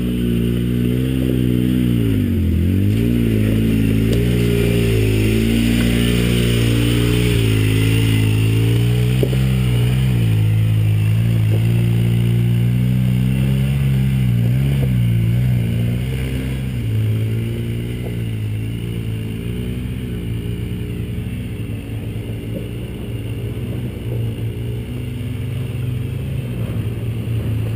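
Side-by-side off-road vehicle engine working up a rocky climb, its pitch rising and falling as the throttle is fed in and eased off, with a sharp dip a couple of seconds in. It runs louder through the first half and settles lower and steadier after that.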